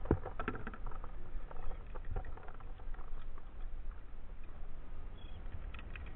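Handling noise: scattered clicks, taps and rustles of a landing net and a metal lip-grip scale being worked against a plastic kayak, with one sharp knock right at the start.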